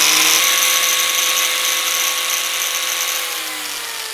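Corded angle grinder running free at full speed with a steady high whine, then switched off about three seconds in and winding down.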